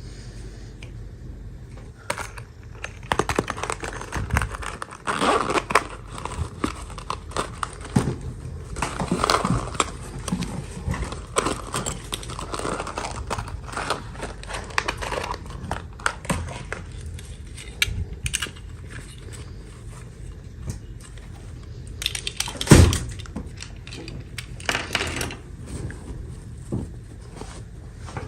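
Toy packaging crinkling and tearing as it is opened by hand, with scattered clicks and taps from handling; one louder thump about three-quarters of the way through.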